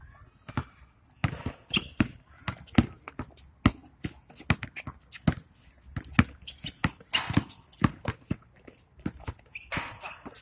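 A basketball being dribbled and bounced on an outdoor hard court during play: a run of sharp, irregularly spaced bounces, several a second at times.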